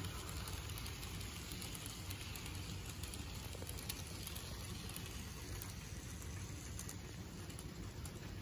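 Model train freight cars rolling past on the track: a faint, steady rattling with many small irregular clicks from the wheels on the rails.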